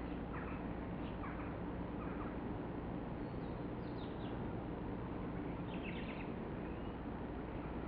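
A few short, faint bird chirps over a steady low outdoor hum.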